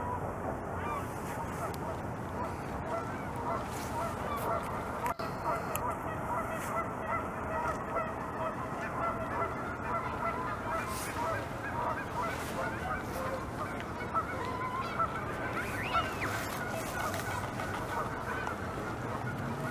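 A dense chorus of many birds calling over one another, with scattered sharp clicks of a beaver gnawing a branch with its teeth.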